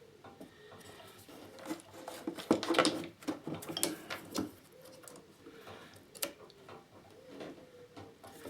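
Scattered light clicks, taps and knocks from handling a rebuilt lithium-ion cell pack and tools on a workbench, with a few sharper knocks in the middle.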